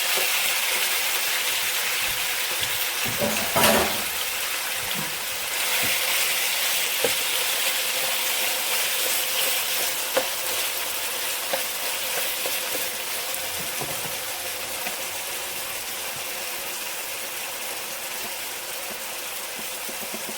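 Chicken breast strips sizzling in hot olive oil in a frying pan, with a utensil knocking against the pan as they are stirred, loudest about three and a half seconds in. The sizzle eases off gradually toward the end.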